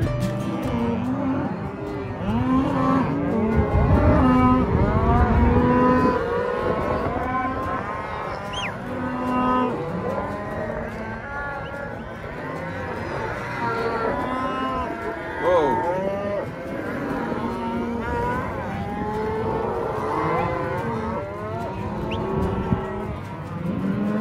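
A herd of cattle bawling and mooing, many cows calling over one another without pause.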